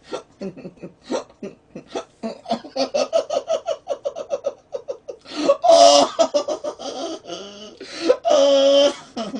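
A man laughing in quick, rhythmic bursts, then letting out two loud, drawn-out cries of about a second each, with a stocking pulled tight over his head.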